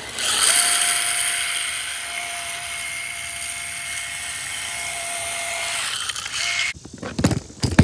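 Electric motor of a Traxxas RC car running at a steady, high-pitched whine, with the hiss of its 3D-printed plastic drift wheels spinning on the ground, for about six seconds. Near the end it stops, and a few loud knocks follow.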